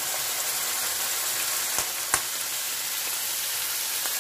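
Raw chicken livers sizzling as they go into very hot oil in a frying pan, a steady hiss, with two sharp taps about two seconds in.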